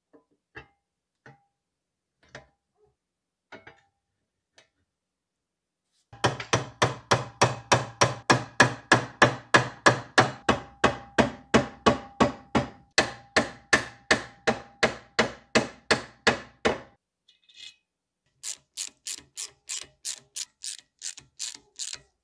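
A ratcheting screwdriver with a hex bit clicks in a steady rhythm, about four clicks a second, as it turns socket-head cap screws into steel parts. A few scattered light metal clicks come first, then a long loud run of clicks, a short pause, and a second, quieter run near the end.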